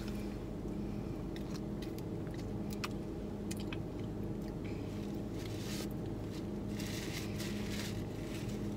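Thick milkshakes being sucked up through plastic straws: scattered wet clicks and short hissing slurps, with two longer slurps near the end, as the thick shake is hard to draw up. A steady low hum runs underneath.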